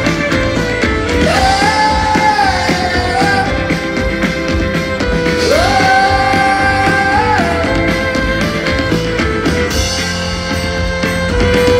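Live folk-rock band playing, with acoustic guitars, violin and drums and singing in long held notes that step up and down, recorded from within the audience.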